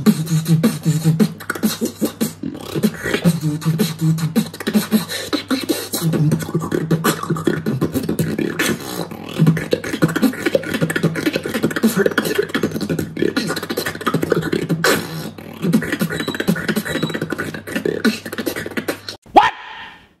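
Beatboxing: a fast run of mouth-made kick, snare and hi-hat sounds with low bass pulses between them, over a steady low hum. It cuts off about a second before the end.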